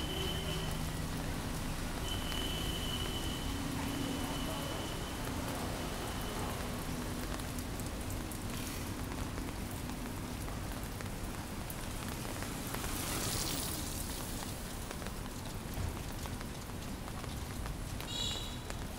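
Steady rain falling, an even hiss of drops, swelling louder for a second or so about two-thirds of the way in. A few short high-pitched chirps come near the end.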